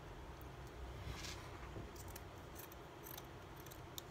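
Scissors snipping through two layers of T-shirt fabric: a faint string of short, separate cuts.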